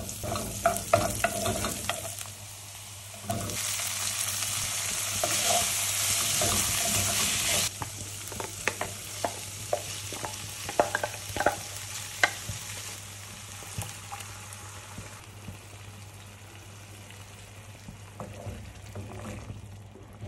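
Chopped onions and paneer cubes sizzling in oil in a nonstick frying pan, with a spoon stirring and clicking against the pan. The sizzle is loudest from about four to eight seconds in. After that come scattered clicks of stirring, and the sound grows quieter once a thick green puree is added to simmer.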